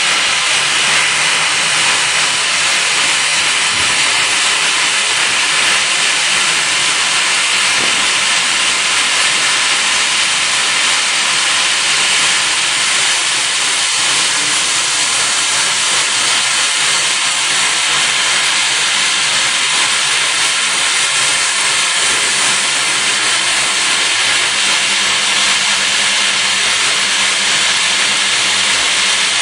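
Friction stir welding of aluminium plate: the rotating tool traverses the seam while air jets blow on it, making a steady, loud hiss with a faint low machine hum underneath.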